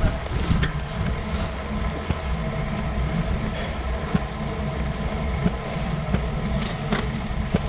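Wind buffeting the microphone of an action camera on a road bike in motion, a steady fluttering rumble, mixed with tyre and road noise and a few sharp clicks from the bike.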